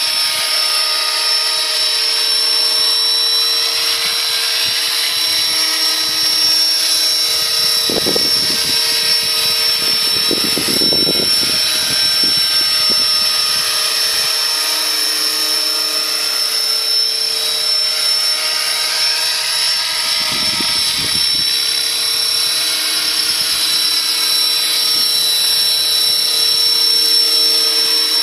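Radio-controlled scale Hughes 500 model helicopter in flight: a steady high-pitched motor whine over rotor noise, its pitch sweeping gently up and down as the model moves about.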